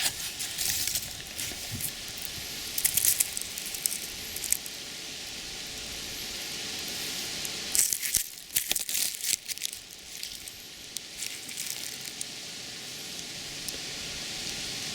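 Crinkling and rustling in short, irregular clusters from a freshly pulled elephant garlic bulb and its dry, papery leaves and wrappers being handled, over a steady hiss.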